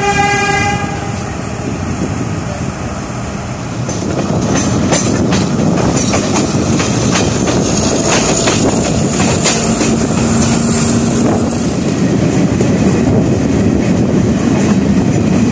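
A passenger express train running, heard from an open carriage window: a short horn blast right at the start, then the steady rumble of the coaches with wheels clicking over rail joints, growing louder from about four seconds in.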